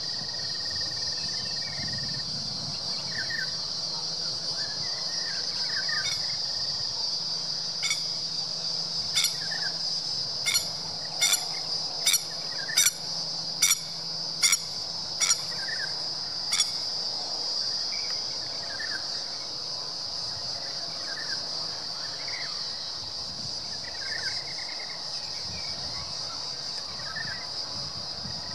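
Steady high-pitched insect drone, with scattered short bird chirps. From about eight seconds in comes a run of about ten sharp clicks, spaced under a second apart.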